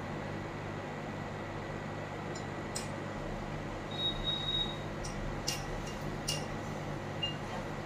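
Hot air rework gun blowing a steady whoosh onto a phone circuit board, heating it to melt the solder during a network IC replacement, over a low hum. A few light clicks come in the middle, with a short high beep about halfway.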